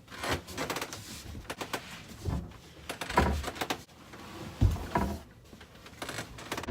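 Irregular knocks, clicks and scraping of locker doors and hatches being opened and stowed gear being handled, with a few heavier thumps.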